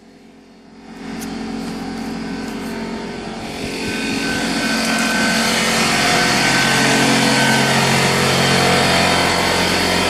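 Air compressor motor running steadily after kicking on to refill its tank, with an even machine hum. It grows louder about a second in and again around four seconds in.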